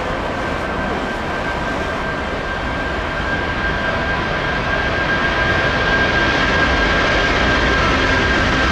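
Boeing 747-400's four Rolls-Royce RB211 turbofans at take-off power during the take-off roll. It is a steady roar with a high, held fan whine, growing louder partway through as the jet comes abreast.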